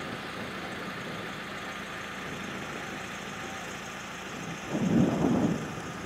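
Wind rushing over the microphone, a steady hiss that surges into loud gusts near the end.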